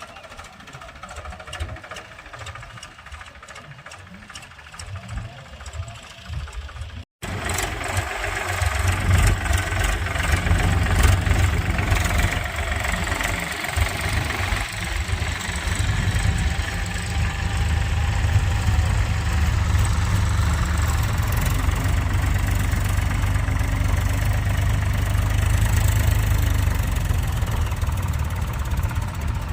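Diesel engine of a backhoe loader or farm tractor running. For the first seven seconds it is fainter, with rapid, evenly spaced clicking. After a sudden break it is loud and close, running steadily with a deep low sound.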